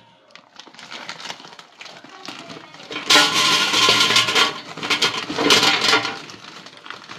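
Frozen fries poured from a plastic bag, clattering into an air fryer's empty nonstick basket in two pours, about three seconds in and again about five and a half seconds in, with a ringing tone under the clatter. Light rustling of the bag before the first pour.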